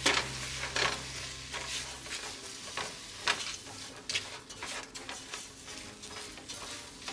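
Chicken, turkey kielbasa and shrimp sizzling in a pan while being stirred, with repeated scraping strokes of the utensil against the pan. A low hum stops about two seconds in.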